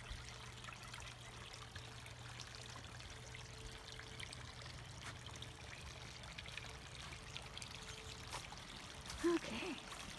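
Water trickling and pouring steadily into a garden pond, over a faint steady low hum. A short louder pitched sound comes about nine seconds in.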